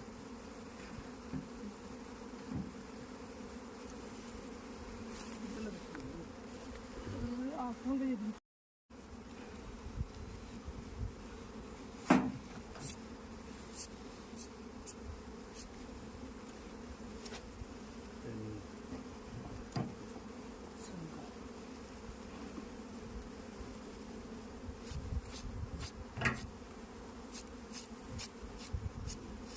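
Honeybees buzzing in a steady, continuous drone, with scattered sharp clicks and one loud knock about twelve seconds in.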